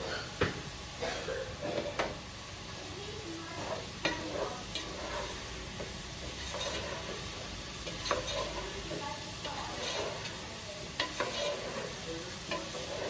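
A utensil stirring and scraping in a pan of frying chicken curry, with irregular light knocks against the pan over a steady sizzle.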